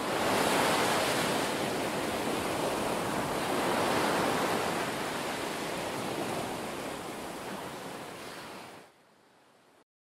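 Ocean surf washing and rushing, swelling twice and then fading away, cutting off near the end.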